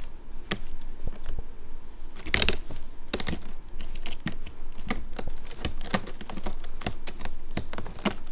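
A kitten's claws scratching and scrabbling at a woven straw dome cat bed, an irregular run of small clicks and scrapes with a louder scrape about two and a half seconds in.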